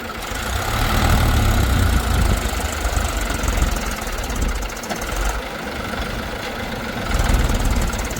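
Diesel engine of heavy farm or construction machinery running, growing louder about a second in and again near the end.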